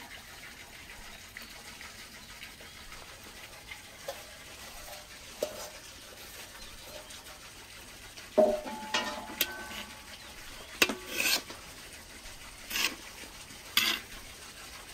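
A long metal slotted skimmer scraping and knocking against a large metal cooking pot as rice is turned in it, several knocks ringing briefly. A quiet background first, then the knocks start a little past halfway and come every second or so.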